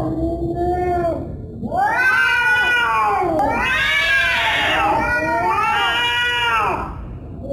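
Angry domestic cat yowling (caterwauling). One call tails off about a second in; after a short pause comes a run of long, drawn-out yowls that rise and fall in pitch, two of them overlapping in the middle.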